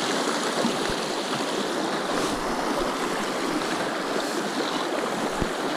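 Shallow rocky trout stream running over riffles: a steady, even wash of flowing water.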